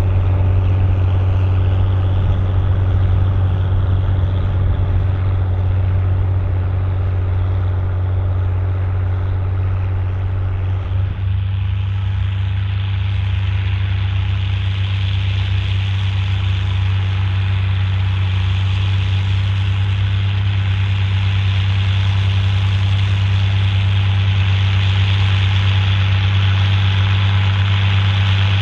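Volvo BM 810 Turbo tractor's turbocharged engine running steadily under load while pulling a six-furrow plough, a deep constant drone. About eleven seconds in the sound shifts: the middle tones drop away and a higher hiss comes up.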